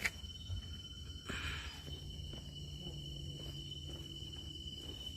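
Insects droning on one steady high pitch, with a short rustle about a second in and a faint low hum underneath.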